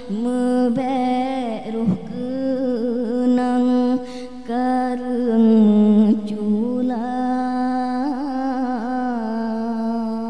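A young man's solo voice singing an Acehnese qasidah unaccompanied into a microphone: long held notes with wavering melismatic turns, broken by short breaths about two and four seconds in. It is the drawn-out closing phrase of the song.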